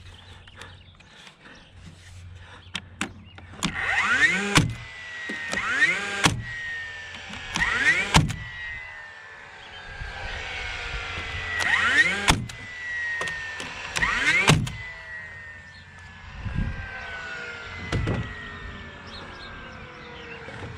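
DeWalt framing nailer driving 3-inch galvanized nails into wooden siding boards. About five sharp shots, each preceded by a short rising whine, plus a few lighter knocks.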